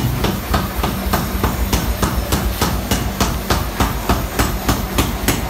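Rapid, regular hammer strikes on metal in a forge, about four a second, over a steady low hum.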